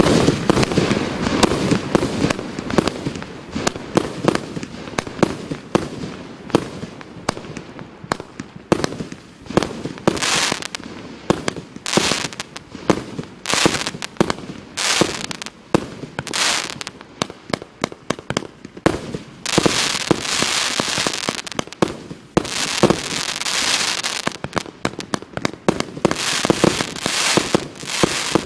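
Multi-shot consumer fireworks cake firing a rapid, continuous series of shots: launch thumps and aerial bursts one after another. About two-thirds of the way through come longer stretches of dense crackling.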